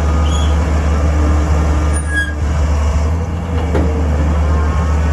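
Engine of a PBD boring (drain-installation) rig running steadily with a deep, even drone, with a short high squeak about two seconds in.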